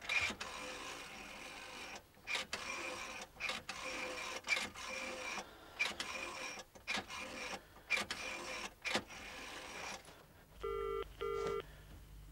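Telephone line hiss and clicks heard while a number is dialled. About ten seconds in, the British double ringing tone starts: two short burrs close together, the number now ringing at the other end.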